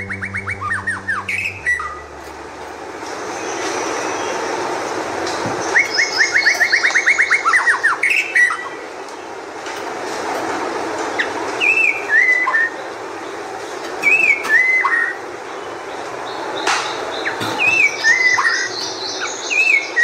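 White-rumped shama singing: fast rattling trills, then a run of clear, slurred whistled notes repeated every second or two.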